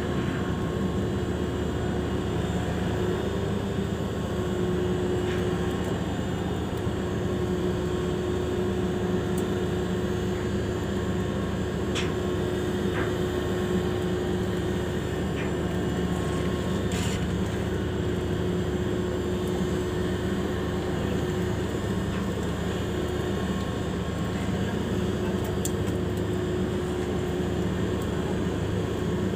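Marine engine running steadily: a constant low drone with a steady hum that holds the same pitch and level throughout.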